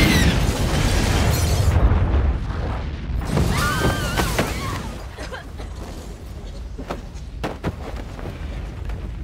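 A big explosion boom with shattering debris, loud at first and dying away over about four seconds. A few sharp thuds follow near the end.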